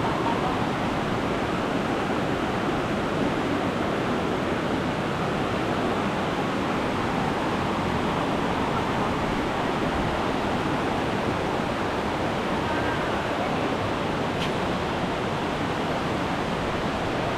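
Steady rushing noise of a large waterfall's falling water, with one faint click about fourteen and a half seconds in.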